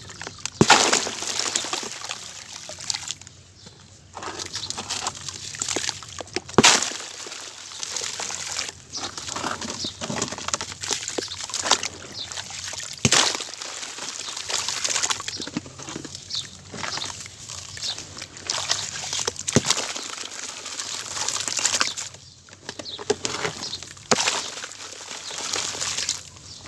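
Dry sand-cement chunks being smashed and mashed by hand in water into a paste: gritty wet crunching, squishing and sloshing. A few sharp cracks come roughly every six seconds as harder pieces break.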